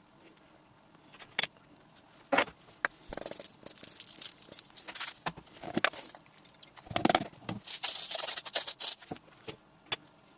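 Metal spatulas on a rolled-ice-cream cold plate: a few sharp taps, then a stretch of scraping and tapping against the steel, which dies down near the end.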